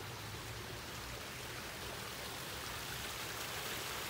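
Water from a pondless waterfall running and splashing over rocks in a steady rush, growing slightly louder.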